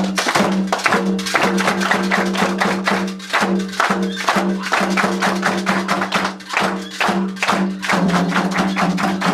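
Percussion music: fast, steady strokes of drums and a wood-block-like click, over a low held note that breaks and restarts about twice a second.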